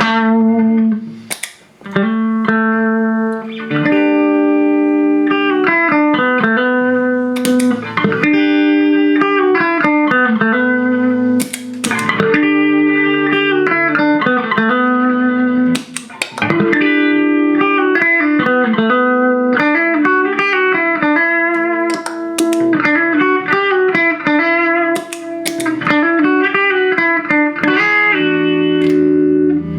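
Fender American Deluxe Stratocaster played clean through a compressor pedal into a Vox Pathfinder 15R amp: picked chords and single-note lines, each note ringing on with long sustain at an even level. There is a short break about a second and a half in.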